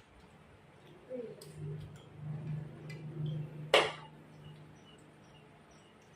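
A single sharp clink, like a utensil or dish knocking, about four seconds in, over a faint low hum. It is followed by a faint, regular high chirping about two or three times a second.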